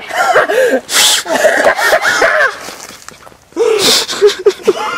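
A woman laughing hard in two long bouts, with sharp gasping breaths between the peals.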